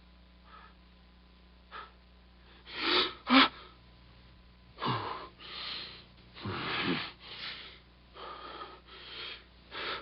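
A man's breaths, gasps and short effort grunts on an isolated film dialogue track, over a faint steady hum. They come as a string of short bursts, the loudest about three seconds in and a cluster from about five to eight seconds.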